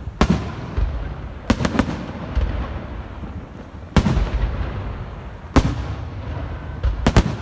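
Aerial fireworks bursting: a string of sharp bangs, some in quick pairs, coming every second or two, with a low rumble carrying between them.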